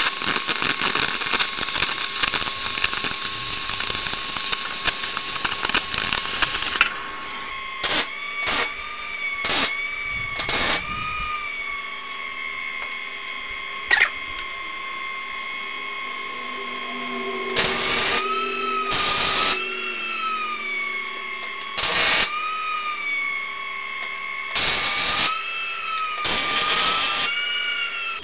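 Oxy-acetylene torch cutting through a steel I-beam, a loud steady hiss that stops suddenly about seven seconds in. After that come about nine short bursts of MIG welding, tack welds of half a second to a second each, over a steady hum.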